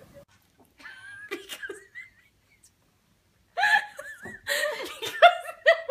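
People laughing: a brief laugh about a second in, then a pause, then louder bursts of laughter in the second half.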